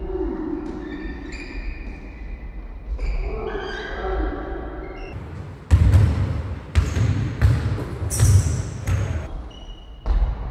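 Basketball being dribbled on a sports-hall floor: about five loud bounces starting a little past halfway. Before them, players' shoes squeak on the floor and voices call out.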